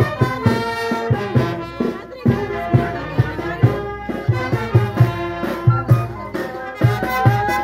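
Live festival band music: a bass drum beating steadily about two to three times a second under a wind-instrument melody, accompanying a dancing procession.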